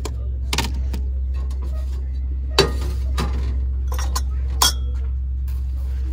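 Drinking glasses and a plastic tray being handled on a shelf: a handful of sharp knocks and clinks, the last loud one ringing briefly, over a steady low hum.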